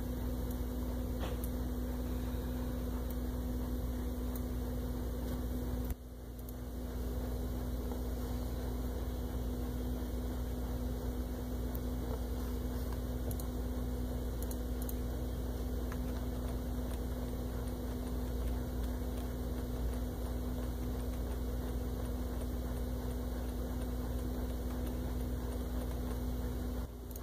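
Steady, even background hum with a constant low tone, like a fan or electrical drone, briefly dipping about six seconds in.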